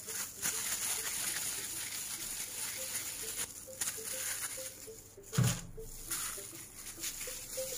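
Plastic-gloved hands pulling and rolling soft yeast dough, a continuous rustling handling noise, with one soft thump about five seconds in.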